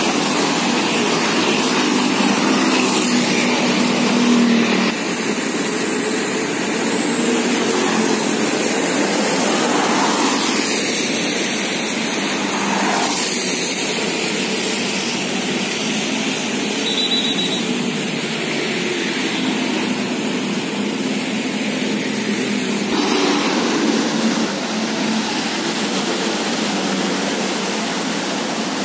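Steady road traffic on a wet road: motorcycles, buses and trucks driving past, their engines mixed with the hiss of tyres on wet asphalt, with a few louder passes.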